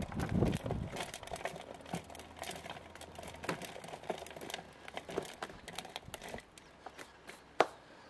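Faint crackling and rustling of crumbly potting soil being handled, with one sharp click near the end.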